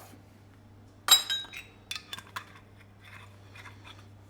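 A tablespoon clinking against a small bowl while vinegar is measured into it: one sharp ringing clink about a second in, then a few lighter taps around two seconds.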